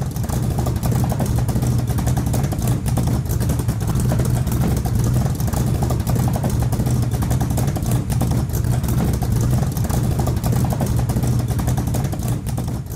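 A truck engine running steadily through its exhaust, heard loud and close at the tailpipes.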